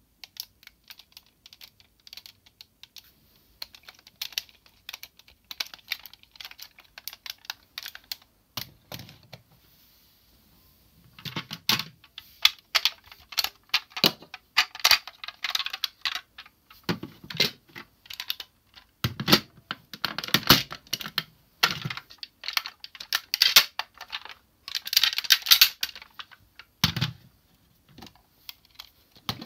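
Hard plastic parts of a DX Zyuohger combining-robot toy being handled: quick clicks, snaps and clatter as pieces are pulled apart and fitted together. Light and sparse at first, much louder and busier from about a third of the way in.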